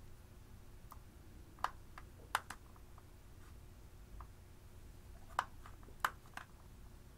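Scattered sharp clicks and taps as a plastic tool scrapes pressed eyeshadow out of the pans of a plastic makeup palette. There are about eight in all, irregularly spaced, the loudest around two seconds in and around five to six seconds in.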